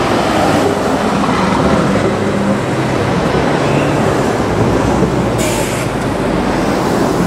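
2018 Aston Martin Vantage's twin-turbo V8 with sport exhaust, loud as the car pulls away under throttle, its exhaust note shifting in pitch a few times.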